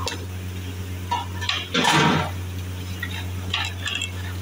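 Long metal ladle scraping and clinking against the sides of a large metal cooking pot as a thick beef curry is stirred. The loudest scrape comes about two seconds in. A steady low hum runs underneath.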